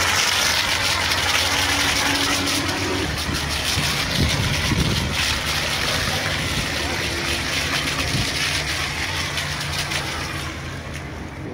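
High-pressure water jet spraying onto truck tyres with a steady, loud hiss, over a low engine hum. The hiss thins near the end.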